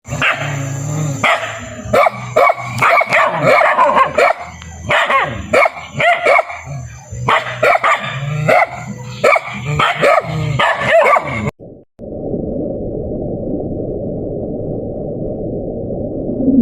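Dog barking and yipping repeatedly in quick bursts, ending abruptly after about eleven seconds; then a steady low rushing noise.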